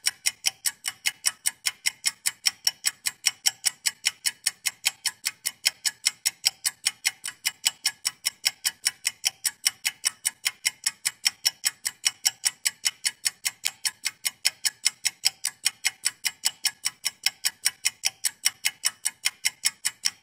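Steady, even ticking like a clock, about four sharp ticks a second.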